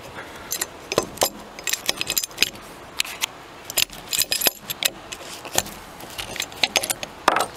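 Metal parts of a leaf spring stabilizer clicking and clinking as they are handled: its locking pin is pulled out and the plates knock together as the bracket is swung. The clicks come irregularly, many of them short and sharp.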